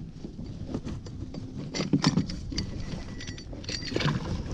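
Wind rumbling on the microphone, with scattered clicks and knocks of gear against a fishing kayak's hull.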